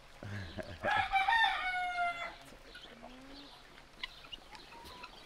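A rooster crowing once, a single drawn-out call of about a second and a half that drops slightly in pitch at the end.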